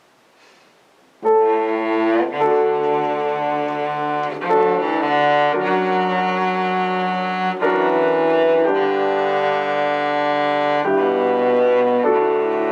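After about a second of faint hiss, a slow instrumental piece starts on cello and piano, with long held notes and chords changing every second or two.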